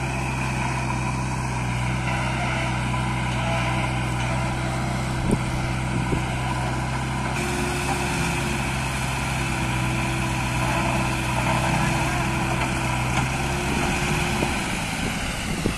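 Diesel engines of a backhoe loader and tractor running steadily at work. Their tone shifts about halfway through, and the deepest part drops away near the end. A couple of sharp knocks come about five and six seconds in.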